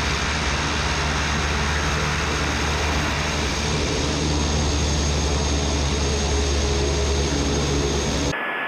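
Cessna 208 Caravan's PT6 turboprop engine and propeller running steadily while the plane taxis, heard from outside the aircraft, with a thin steady high whine over a deep drone. Near the end it cuts off sharply.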